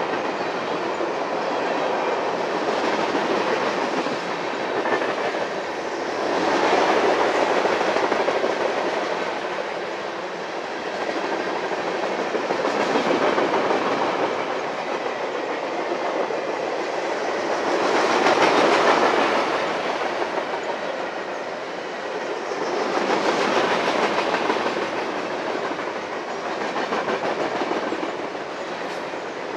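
A train's cars rolling past on the track: a steady noise without any distinct tone that swells and eases about every five to six seconds.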